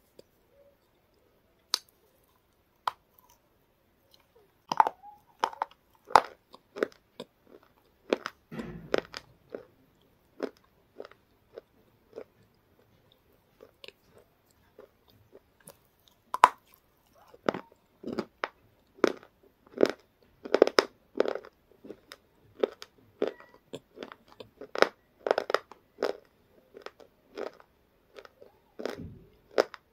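Flaky chips being bitten and chewed close to the microphone: sharp, irregular crunches, few at first, then coming in quick runs, thickest in the second half.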